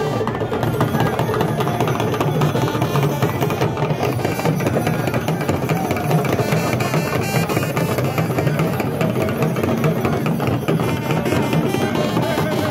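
Traditional drum ensemble playing a continuous, dense percussion rhythm.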